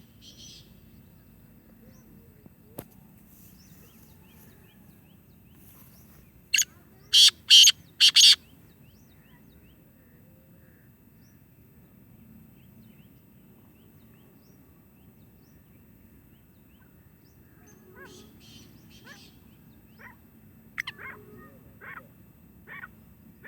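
Birds calling: four short, loud calls in quick succession about a third of the way in, then a scatter of softer calls near the end.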